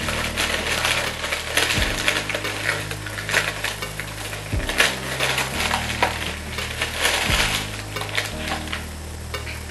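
Crinkling and rustling of packaging as hands dig through a beauty subscription box and lift products out, a busy run of small crackles and clicks. Soft background music with low held chords plays underneath.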